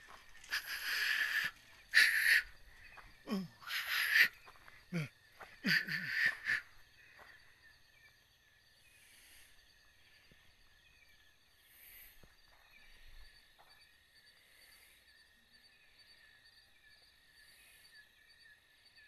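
A person shushing, about five hissed "shh" sounds over the first six seconds or so, then crickets chirping steadily in a faint, pulsing chorus.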